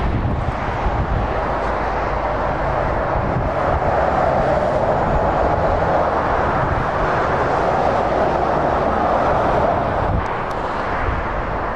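Motorway traffic noise: steady tyre roar and engine noise of lorries and cars going past. It swells as an articulated lorry passes close by and eases off about ten seconds in.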